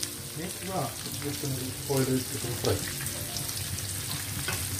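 Safi fish (rabbitfish) deep-frying in hot sunflower oil in a pan: a steady sizzle of bubbling oil.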